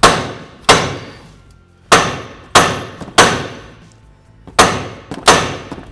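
Seven hammer blows on the steering knuckle of a 2007 Hyundai Elantra. Each is a sharp strike that rings briefly, spaced unevenly from about half a second to over a second apart. The blows are knocking the corrosion-seized lower ball joint stud down and out of the lower control arm.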